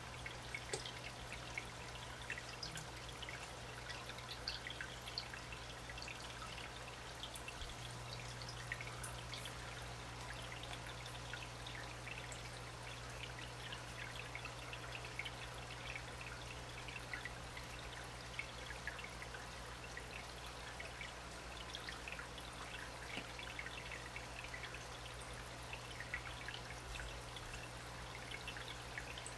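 Water trickling and bubbling steadily, with many small drips and splashes over a low steady hum that steps up slightly about eight seconds in.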